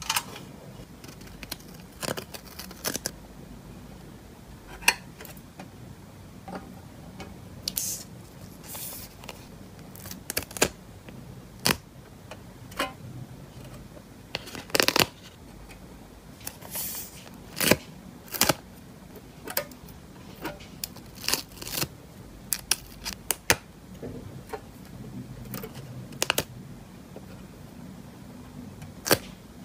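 Close-up crafting sounds as metal tweezers lift stickers off sticker sheets and press them onto a pink tin box: scattered sharp clicks and taps, with a few short crackly peels and rustles of the sheets.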